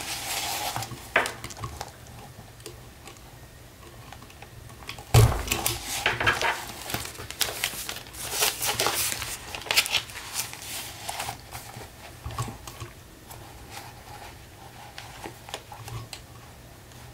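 A Crop-A-Dile II hand punch snapping shut through a stack of paper pages, with the paper rustling and crinkling as the sheets are moved and lined up between punches. The loudest is a sharp snap about five seconds in.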